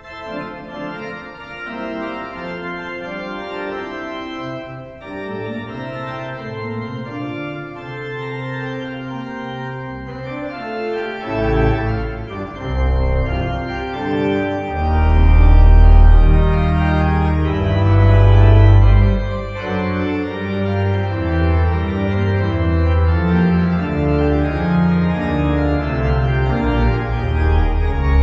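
Church organ playing sustained chords. Deep pedal bass notes come in about a third of the way through, and the music grows louder and fuller.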